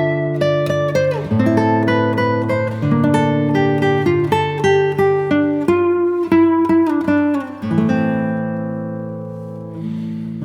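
Background music: an acoustic guitar picking a melody of plucked notes.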